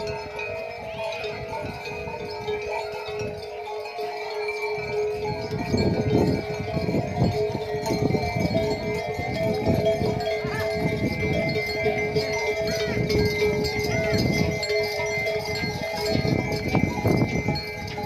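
Cowbells on a herd of cows ringing steadily together as the animals walk, several bell tones overlapping, with irregular low thumps from about six seconds in.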